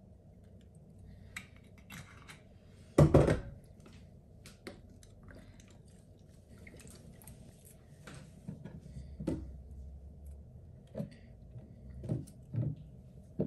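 Kitchen counter handling sounds. One loud knock about three seconds in as something is set down, a faint hiss as lemon juice is squeezed from a plastic squeeze bottle onto the salad, then a few lighter knocks near the end as cherry tomatoes are set on a wooden cutting board.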